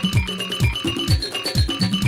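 Upbeat electronic background music: a deep kick drum on a steady beat, with bass notes and short, high synth notes repeating over it.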